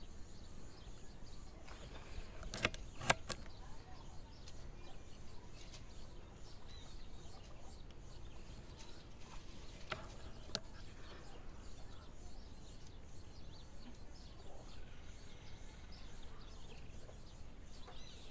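Quiet outdoor background with faint bird calls, broken by a few sharp clicks, the loudest two close together about three seconds in and a lighter one about ten seconds in.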